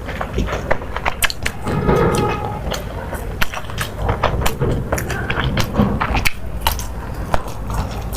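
Close-miked eating: chewing with many sharp, irregular wet mouth clicks and smacks over a low rumble.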